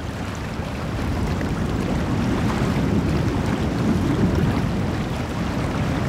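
Steady low rumble of wind and water noise, with no distinct events.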